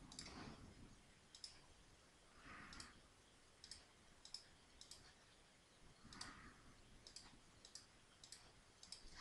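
Faint computer mouse button clicks: about a dozen single clicks at irregular spacing, some coming in quick pairs, as points are placed one by one.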